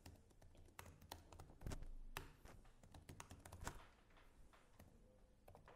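Faint, irregular tapping of laptop keys as someone types.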